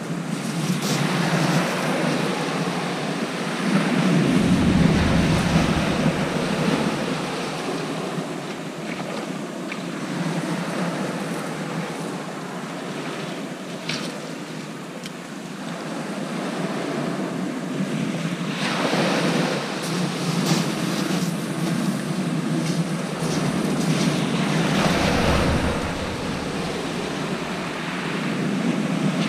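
Surf breaking and washing on a shingle beach, a continuous rushing that swells and fades, with wind gusting on the microphone. The gusts rumble loudest about four seconds in and again near the end.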